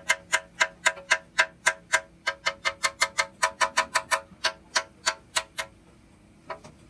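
Small hammer rapidly striking the cast iron of a tractor transmission housing, sharp ringing metallic blows about four a second. The blows stop a little more than halfway through, with one last strike near the end.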